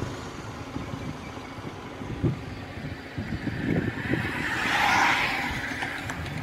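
Wind buffeting the microphone and road noise while riding on a motorbike along a highway. A louder rush of noise swells and fades about five seconds in.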